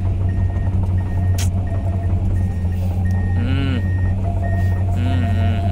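Komatsu PC210 excavator's diesel engine running with a steady low drone, heard inside the cab, while its travel alarm beeps a single high tone about one and a half times a second, the warning that the machine is tracking.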